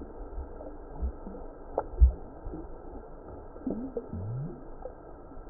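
Lake water sloshing and gurgling around a hand releasing a bass at the side of a kayak, with a few dull knocks, the loudest about two seconds in.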